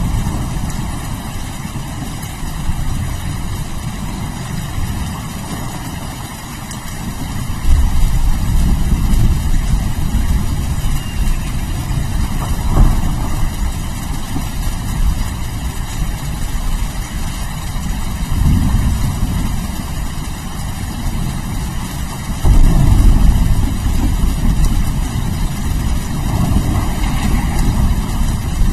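Steady rain with rolling thunder rumbling low. The thunder swells sharply about eight seconds in and again a little past twenty seconds.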